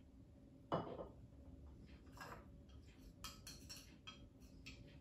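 A glass bottle set down on a stone counter with a single knock less than a second in. Then a metal spoon stirring an oily paste in a small glass bowl, with many quick light clinks against the glass.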